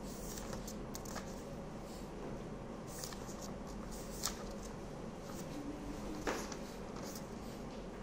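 Faint handling noises, light rustling and a few small clicks, over a steady background hum.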